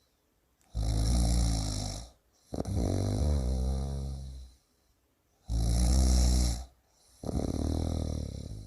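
A person snoring in two full breaths: each is a rasping, hissy snore on the in-breath followed by a lower, pitched drone on the out-breath.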